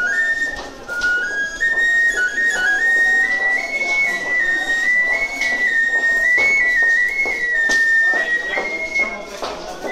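A busker's whistled melody, played through hands cupped at the mouth: a single high, pure tone stepping slowly between held notes. Footsteps of passers-by click under it.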